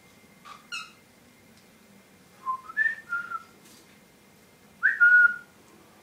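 Young cockatiel calling: a short chirp, then a few short whistled notes that slide in pitch, and near the end a louder whistle that rises and then holds briefly on one note.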